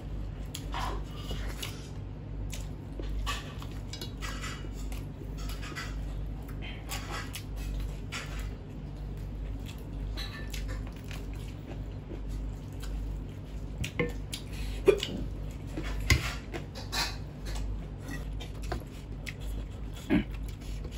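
Mukbang eating noises: hands squishing and mixing rice on steel plates, and chewing. A few sharp clinks against the plates come past the middle and again near the end.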